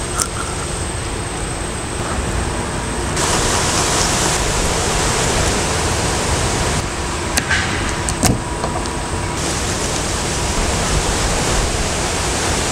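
Steady, loud outdoor rushing noise, with two faint sharp clicks a little past the middle.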